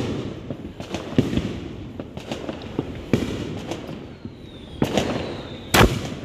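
Fireworks and firecrackers going off: irregular sharp cracks and pops, with a louder bang near the end and a faint falling whistle in the middle.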